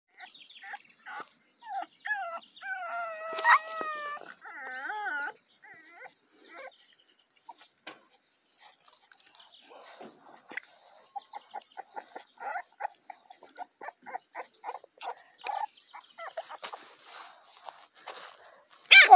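American Bully puppies whining and whimpering, with several wavering high cries in the first five seconds. Soft scattered clicks and rustling follow as the puppies squirm over one another in the grass.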